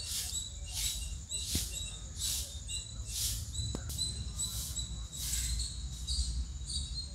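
High-pitched chirping pulses repeating a little more than once a second over a steady thin high tone, with a low rumble underneath.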